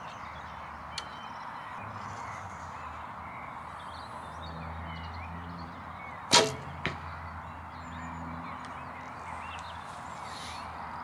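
A recurve bow shot: one sharp snap of the string on release about six seconds in, then a fainter knock about half a second later. Both sit over a steady low hum and outdoor background noise.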